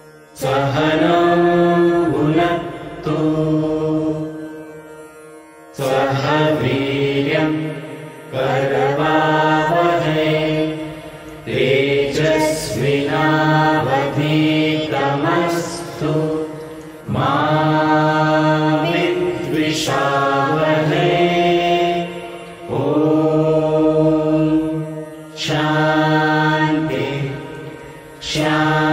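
A group of voices chanting a prayer mantra together, in held phrases of a few seconds each with short breaks for breath.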